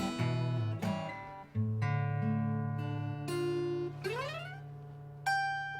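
Acoustic guitar playing: strummed chords, then single notes left ringing, with a note sliding upward about four seconds in and a bright plucked note ringing out near the end.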